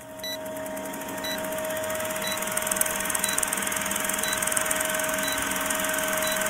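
Film-countdown sound effect: a movie projector's steady whirring hiss, swelling a little in the first two seconds, with a short high beep once a second.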